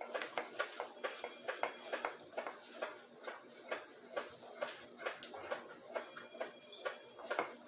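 Spoon stirring a thickening slime mixture in a plate: a continuous run of short sticky clicks and scrapes, a few a second.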